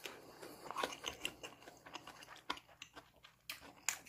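A person chewing a mouthful of food, with quick, irregular smacks and clicks.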